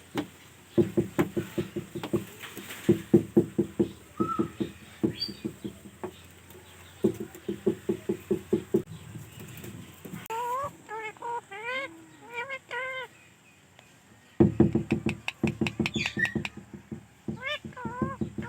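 Parrot making quick runs of low clucks in several bursts, with a series of short rising-and-falling whistled chirps partway through and again near the end.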